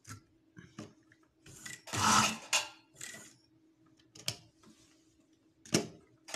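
Cloth rustling and rubbing as trouser fabric is pushed and smoothed at a sewing machine, loudest about two seconds in, with a few light clicks and a faint steady hum underneath.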